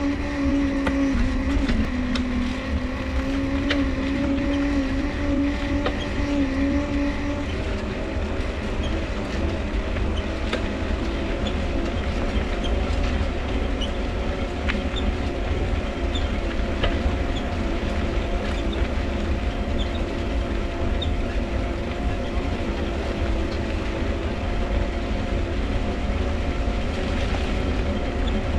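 Mifa folding bike being ridden, its dynamo running with a steady whirring whine that shifts pitch as the speed changes, over a low rolling rumble. Short high squeaks from the cranks come through now and then.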